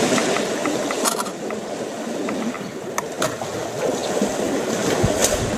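Water sloshing and splashing as an African elephant wades through a shallow waterhole and steps out onto the bank, with a few sharp clicks and knocks scattered through it.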